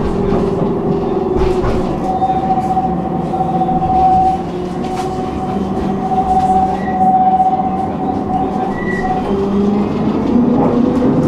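Tram running, heard from inside the passenger cabin: a steady hum of drive and running noise, with a higher whine held for several seconds through the middle and scattered clicks from the wheels on the rails.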